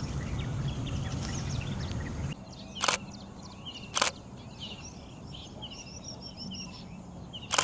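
Several small birds chirping and twittering in many short, overlapping calls. Three sharp clicks cut across them: two about a second apart near the middle, a third near the end. A low background noise stops abruptly about two seconds in.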